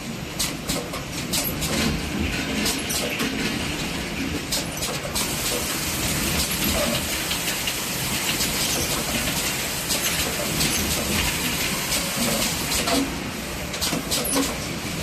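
Two-head track cap locking machine running, a steady mechanical noise with irregular sharp clicks that come thickest near the start and end.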